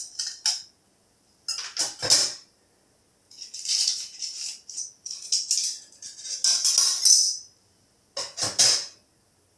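Small shards of broken picture glass being scraped and clinking on a tile floor as they are picked up by hand, in several short bursts with pauses between. Near the end they are dropped into a cardboard box.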